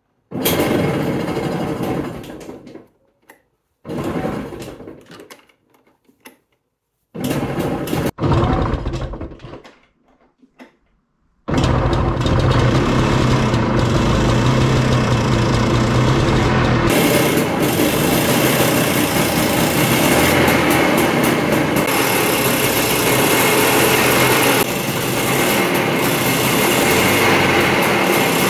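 1958 NSU Prima D scooter's air-cooled two-stroke single, being cold-started on its dynastart electric starter with choke and tickler pulled. Three short bursts of cranking die away without catching. About 11 seconds in it catches and keeps running steadily, its note changing about 17 seconds in.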